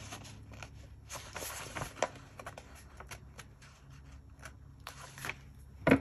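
Paper planner pages and sticker sheets being handled on a desk: rustling with light taps and ticks, and one sharp knock near the end.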